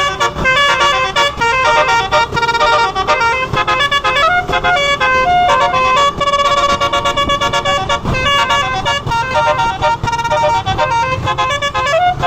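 Basuri telolet bus horn playing a fast melody, its notes stepping from pitch to pitch several times a second.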